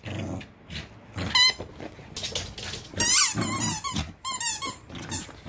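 Squeaky dog toy squeaking in a handful of short, wavering squeaks as a bichon frise bites and chews it, the longest about three seconds in.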